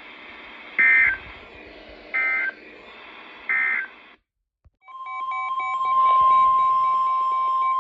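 Emergency Alert System data signal: three short bursts of two-tone digital squawk, the end-of-message code closing the warning. After a brief gap, a steady attention tone near 1 kHz starts, with shorter beeping tones pulsing above and below it, heralding the next alert.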